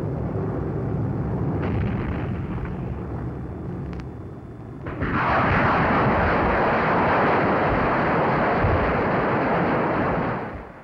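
Propeller warplane engines droning steadily. About five seconds in, a sudden loud, sustained noise of explosions takes over and holds until it falls away near the end.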